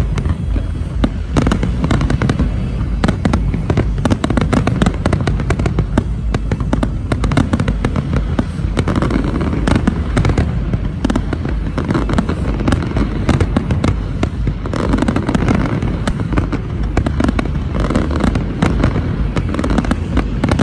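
Large fireworks display: a dense, unbroken barrage of bangs and crackles over a steady low rumble.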